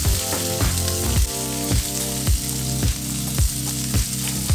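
Trout fillets sizzling in butter in a hot frying pan as they are lifted out with a spatula, over background music with a steady beat of about two beats a second.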